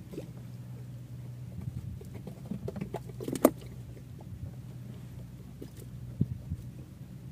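Steady low hum of a boat engine running, with scattered small knocks and clicks over it and one sharp click about three and a half seconds in.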